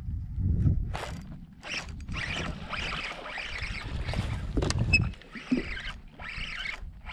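Fishing reel being cranked in irregular bursts while a hooked trout is fought on a bent rod, with a low rumble underneath.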